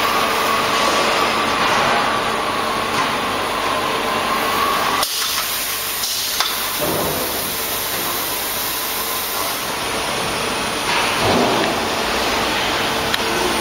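Stretch-wrapping machine running steadily as its arm wraps plastic film around a pallet of slit coils: an even mechanical hum and hiss, with a faint whine that cuts off suddenly about five seconds in.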